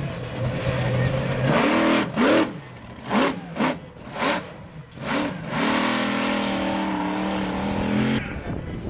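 Mopar Muscle monster truck's engine revving hard in about five quick rising bursts as the truck drives over junk cars, then held at high revs in a steady drone that cuts off abruptly near the end.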